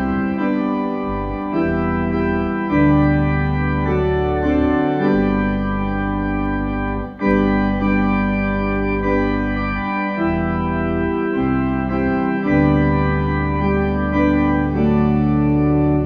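Organ playing slow, sustained chords over deep bass notes, the chords changing every second or two, with a brief break about seven seconds in.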